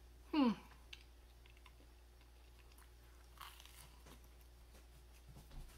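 A brief falling hum from the eater, then a bite into a slice of toast about three and a half seconds in, followed by faint chewing and mouth clicks.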